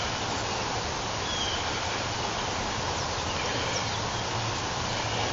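Steady outdoor background hiss, with a few faint, short high chirps.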